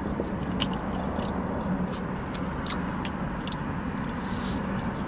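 A person eating a sauced chicken wing: scattered wet clicks and smacks of biting and chewing, heard over a steady low hum.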